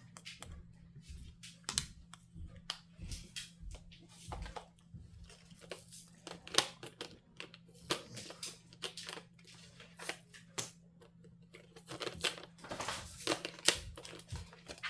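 Plastic packaging crinkling and rustling as it is handled, with scattered light clicks at irregular intervals.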